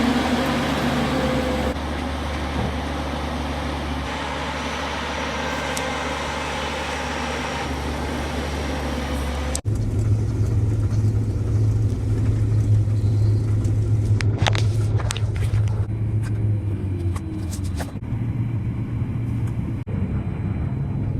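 Vehicle engine running steadily with road or wind noise; about ten seconds in it cuts abruptly to a deeper, louder steady engine drone, with a few faint clicks near the end.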